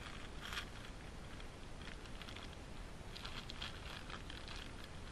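Faint outdoor ambience: a steady low rumble with scattered light rustling and crackling, in small clusters about half a second, two seconds and three to four seconds in.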